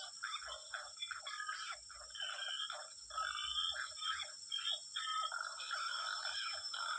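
A dense chorus of short, rapidly repeated animal calls, many overlapping, frog-like in character.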